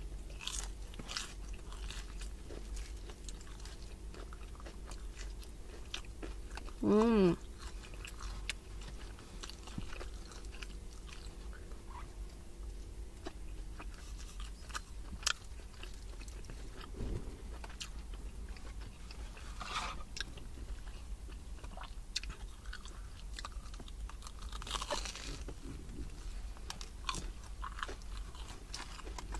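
Close-up chewing and biting of a fried, batter-coated cheese corn dog, with scattered crunches of the crust. About seven seconds in, a brief wavering hum is the loudest sound.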